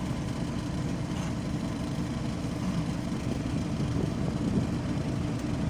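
Steady low rumble of a vehicle engine running nearby, with no breaks or changes.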